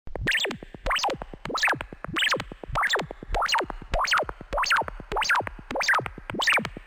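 Synthesized science-fiction sound effect: an electronic tone sweeping quickly up and back down, repeated about eleven times at an even pace of roughly one and a half sweeps a second.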